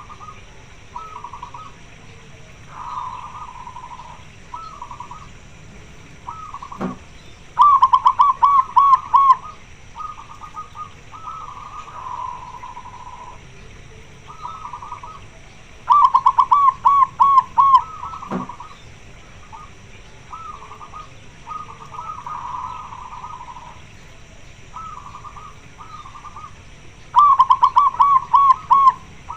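Zebra dove (perkutut) cooing: three loud, rapid runs of five or six rolling coos, about ten seconds apart, with softer coo phrases between them. The uploader presents it as a female calling to attract a male in breeding condition.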